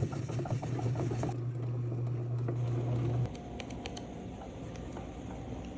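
Bread machine running its kneading motor: a steady low hum with rapid light clicking, which cuts off suddenly about three seconds in. After that there is quieter room sound with a few scattered light clicks.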